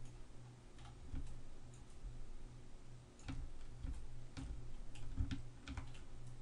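Computer mouse clicking: a handful of separate, irregular clicks while hair strokes are painted and the view is turned, over a low steady electrical hum.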